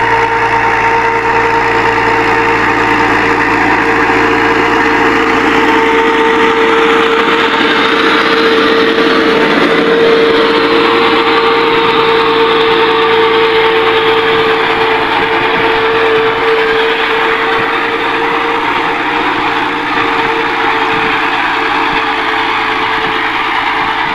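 NH Dabang 85 tractor's diesel engine running steadily under load while it pulls a disc harrow through ploughed soil, with a strong steady hum over the engine noise.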